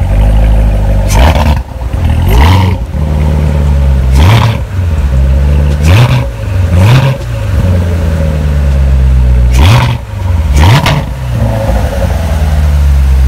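2017 Corvette Z06's supercharged 6.2-litre LT4 V8 running and revved in a series of about seven short throttle blips, each rise falling back to idle.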